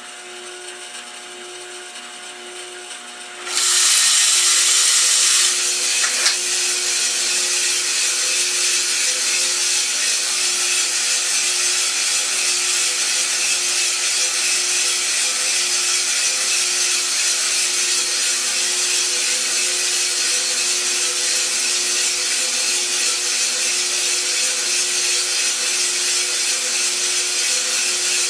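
Iroaster600 coffee roaster running with a steady motor hum. About three and a half seconds in, green coffee beans are charged into the drum with a loud rushing pour lasting about two seconds. After that the beans tumble and rustle steadily in the rotating drum.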